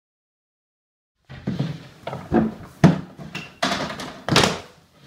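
Silence for about the first second, then someone rummaging through things on wooden shelves: irregular knocks, dull thunks and rustling as items are shoved about and pulled out.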